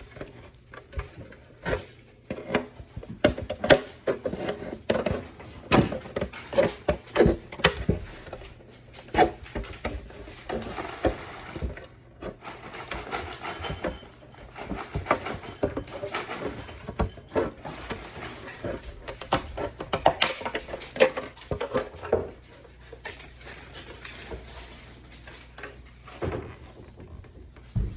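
Thin plastic helmet-kit parts being cut and handled: an irregular run of sharp snips, clicks and knocks with scraping between them.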